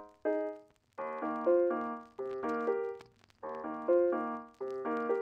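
Piano music: short phrases of struck notes that ring and fade, with brief pauses between phrases.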